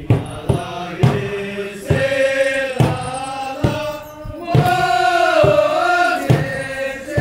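A group chanting in unison, holding long notes, over a large double-headed drum struck in a steady beat about once a second.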